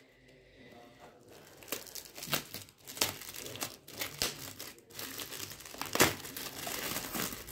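Shiny gold foil gift wrap crinkling and tearing as hands pull it off a small package: a dense run of sharp crackles that starts about a second in, with the loudest rip about six seconds in.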